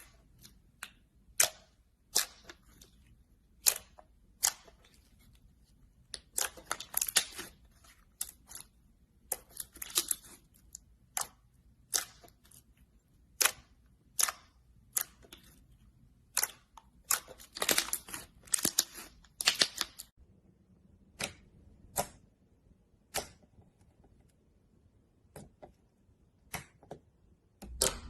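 Slime being handled, making sharp clicks and pops, some single and some in quick clusters, at irregular intervals.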